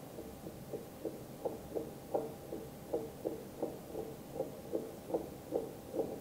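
A round-bottomed white sculpture rocking on a tabletop, pushed by a fingertip and knocking back down in an even rhythm of about three short, dull knocks a second.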